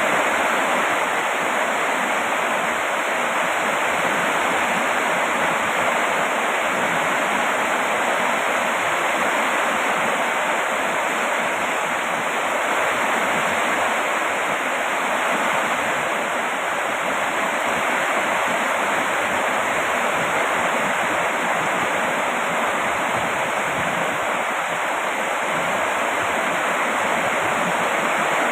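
Steady rain falling: an even, unbroken hiss with no single drops or other events standing out.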